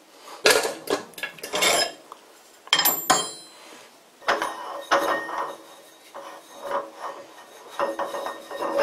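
Aluminium lathe faceplate being unscrewed by hand from the wood lathe's threaded spindle nose: a string of short metal scrapes and handling rubs, with a brief ringing clink about three seconds in.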